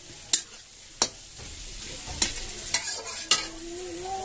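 Metal spatula stirring food frying in a metal kadai, clinking sharply against the pan five times over a steady sizzle.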